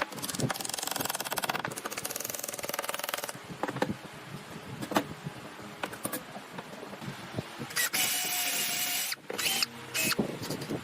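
Woodworking power tool running in two bursts, the first for about three seconds with a fast buzzing rhythm, the second shorter near the end, with scattered sharp knocks on wood in between.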